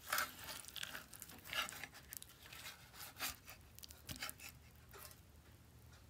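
Faint, irregular crackling and scraping of a metal spoon cutting through a baked potato, minced meat and cheese casserole and lifting a portion from the baking tray, the cheese crust tearing. It dies away about five seconds in.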